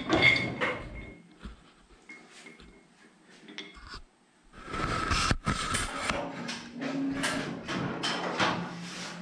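Metal clinks, knocks and scraping as a steel lift cable with a threaded end is handled against a steel lift post. There is a burst near the start, a lull, then a busier run of clatter from about halfway, with one sharp knock.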